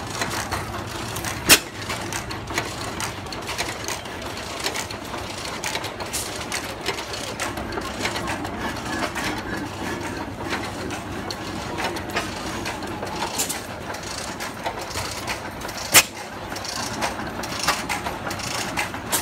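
Antique stationary gas engines running, first a 12 horsepower Sandow, with a steady clatter of valve gear and irregular knocks. Two sharp, much louder bangs stand out, one about a second and a half in and one near the end.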